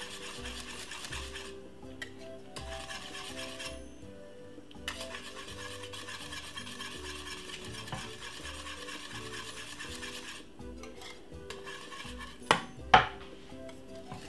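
Wire whisk stirring thick peanut porridge in an aluminium saucepan, a steady scraping swish, with two sharp knocks about half a second apart near the end.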